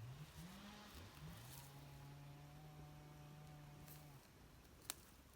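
A person faintly humming a few short low notes, then holding one long steady note for about three seconds. A single sharp click near the end.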